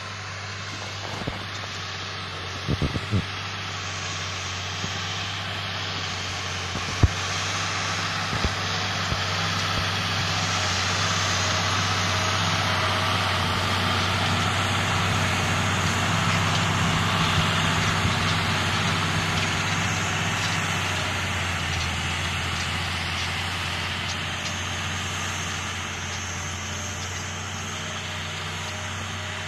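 Belarus MTZ-1221 tractor's D-260 six-cylinder diesel engine running steadily under load while pulling a four-furrow plough. It grows louder toward the middle and fades toward the end. A few short clicks sound around three and seven seconds in.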